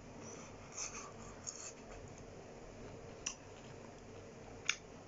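Close-up chewing: quiet mouth sounds with a few short, sharp wet clicks, the loudest near the end.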